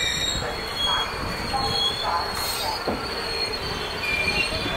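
Indian Railways passenger coaches rolling past on the adjacent track: a continuous rumble of wheels on rail, with thin high squeal tones from the wheels that come and go.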